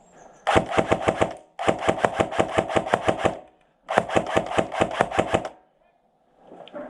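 Airsoft gun firing three full-auto bursts, each a rapid, even string of sharp shots, the middle and last ones longer than the first.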